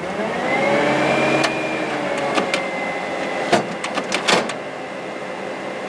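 HP large-format inkjet plotter's internal mechanism during start-up initialisation: a motor whine rises in pitch over the first second and then holds steady, broken by several sharp clicks and knocks. The owner takes this for the print head carriage struggling, something that "might be rather seriously jammed".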